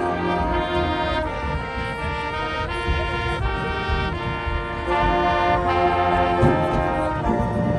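High school marching band's brass section playing sustained chords that move every half second or so, with percussion underneath.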